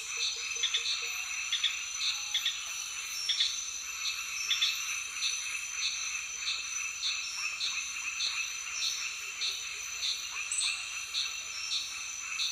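Outdoor chorus of calling animals, frogs and insects: short calls repeat a little under twice a second over a steady high-pitched trill.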